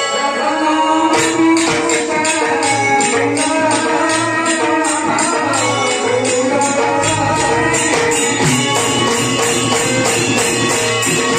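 Live Odia Danda folk music through a loudspeaker system: a barrel drum and jingling percussion keep a fast, steady beat, about three strokes a second, under a man singing into a microphone.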